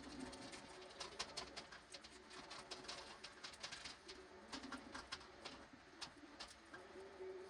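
Faint, low, short cooing calls of a bird, heard three times, among scattered light clicks and taps.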